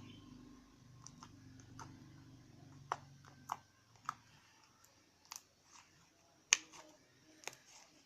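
About ten sharp small clicks and taps at irregular moments, the loudest about six and a half seconds in, over a low hum that fades out about three and a half seconds in.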